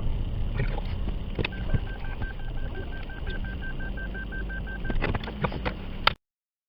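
Rapid electronic beeping at one steady pitch, about six short beeps a second for some three seconds, over a steady low rumbling noise with a few clicks; the sound cuts off abruptly shortly before the end.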